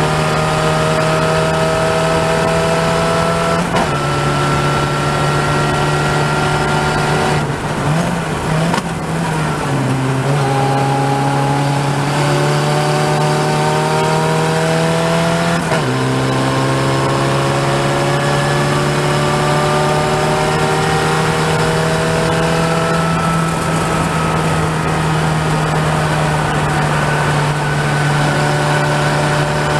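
Open-wheel single-seater race car's engine running hard at racing speed, heard onboard. Its pitch climbs slowly and drops sharply at upshifts about 4 and 16 seconds in, with a rougher, wavering stretch around 8 to 10 seconds as the driver brakes and downshifts for a corner.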